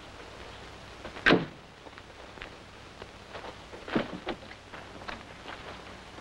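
Car door of a wood-bodied station wagon being worked: a sharp clunk about a second in, then a softer one about four seconds in, with small clicks of the latch between.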